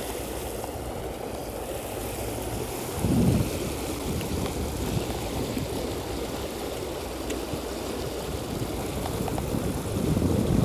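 Fast creek water rushing over a small drop in a concrete channel, a steady rush of white water, with a brief low bump about three seconds in.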